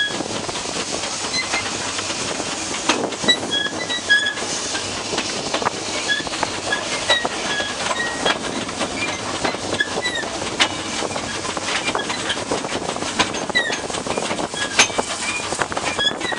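Train rolling at low speed heard from a brake van coupled to the Peckett No. 1438 steam locomotive: a steady running rumble with scattered sharp clicks of wheels over rail joints and many short, high squeaks from wheels and running gear.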